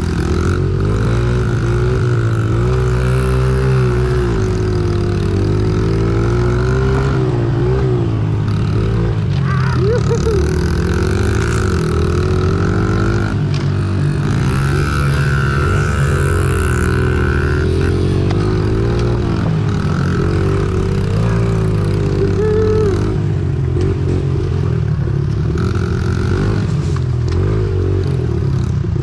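Small single-cylinder four-stroke Honda mini dirt bike engine being ridden, its pitch rising and falling over and over as the throttle is opened and closed.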